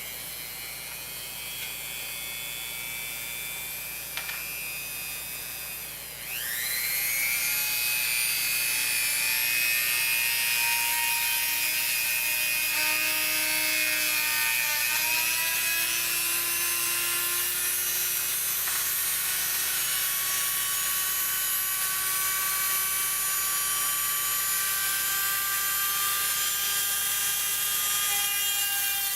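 Small electric power tool motor running with a steady whine, cutting notches in the model's frame. It gets louder about six seconds in, and its pitch sags and recovers under load.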